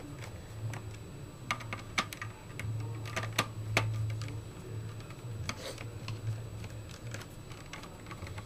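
Small precision screwdriver turning screws into a laptop's plastic bottom cover, giving scattered light clicks and ticks over a steady low hum.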